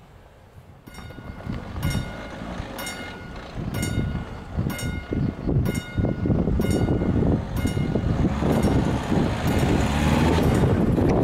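Level crossing warning bell striking about once a second, nine strokes, the warning that the barriers are about to close for an approaching train. Cars drive over the crossing under it, and the traffic noise grows louder as a car passes close near the end.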